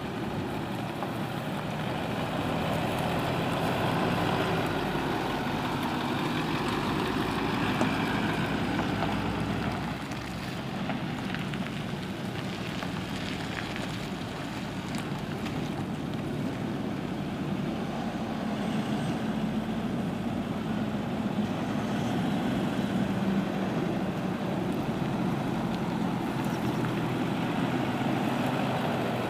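Diesel engine of a 2008 Ford F550 flatbed truck, a 6.4-litre V8 Power Stroke, running steadily, its note swelling and easing slightly now and then. The turbo is listed as non-operational.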